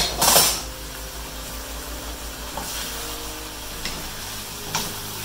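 Sliced bell peppers and onions sizzling steadily in a nonstick frying pan, with a short loud burst of stirring at the start and a few light knocks of the utensil against the pan later on.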